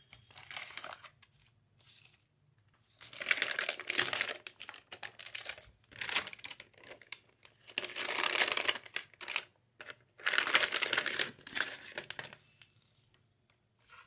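Metallic anti-static plastic bag crinkling and rustling as it is handled and pulled off a motherboard. It comes in about five bursts of a second or two each, with short quiet gaps between them.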